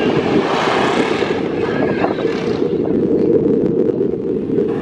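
Drag-race cars' engines running loud at the starting line, a dense steady rumble with wind buffeting the microphone.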